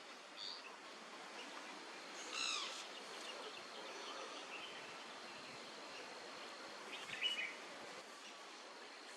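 A few short bird calls over a steady hiss and a thin, high steady tone. The loudest call comes about two and a half seconds in, a brief one near the start, and a small cluster about seven seconds in.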